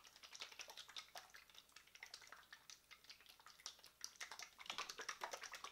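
Olive-oil and apple-cider-vinegar honey-mustard dressing sloshing inside a small lidded glass jar as it is shaken by hand to mix, a faint, rapid, irregular splashing that gets a little louder near the end.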